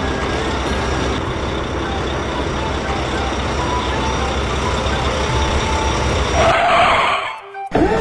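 Cartoon sound effect of trucks and traffic: engines running in a steady low rumble, with a brief louder hissing burst near the end.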